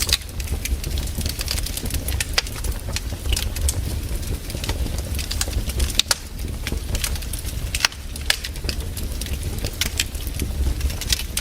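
Wood campfire crackling, with irregular pops and snaps throughout and a couple of louder cracks around the middle, over a steady low rumble.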